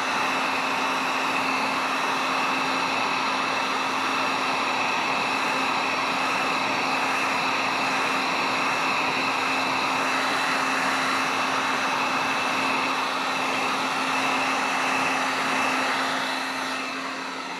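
Electric heat gun running steadily, its fan blowing with a constant hum, warming the old plastic front bumper to soften it and bring back its faded colour. It drops a little and cuts off right at the end.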